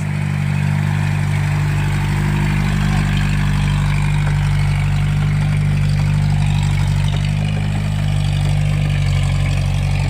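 Mazda engine swapped into a modified Mitsubishi L300 4x4, running steadily with a low, even drone.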